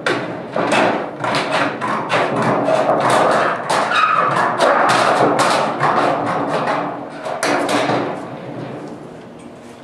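Hand metal snips cutting across a standing seam metal roofing panel: a quick run of crunching snips with the thin sheet rattling and flexing as it is cut. It thins out and gets quieter near the end.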